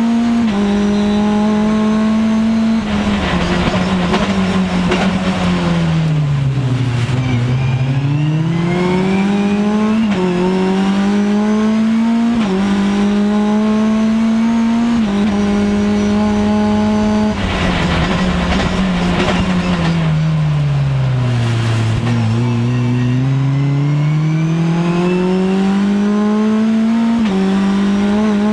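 Mitjet race car engine heard from on board at racing speed: it holds high revs, the revs fall away twice as the car brakes for corners, then climb back under acceleration through stepped upshifts. A hiss of tyre or brake noise comes in at the start of each slowdown.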